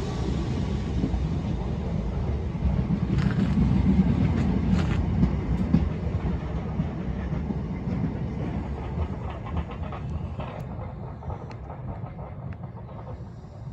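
A train running on the rails with a low rumble and scattered clicks of wheels over the track, gradually fading away as it moves off.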